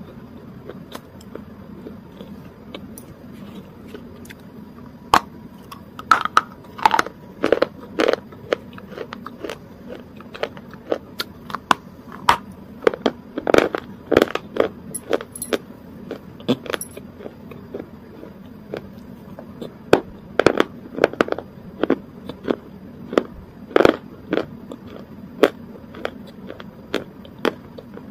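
Close-miked mouth sounds: irregular wet clicks and smacks of lips and tongue, sparse at first and coming in clusters from about five seconds in, over a steady low hum.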